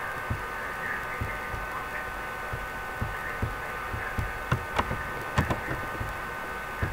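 Scattered light clicks from a computer keyboard and mouse, irregular, coming closer together from about three seconds in, with the sharpest a little before five seconds and again near five and a half seconds. A steady electrical whine runs underneath.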